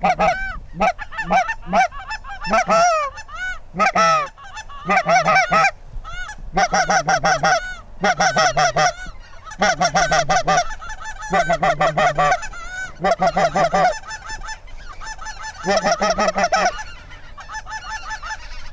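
Geese honking: rapid runs of honks in bursts about a second long, repeated over and over with short gaps and a few shorter calls between them.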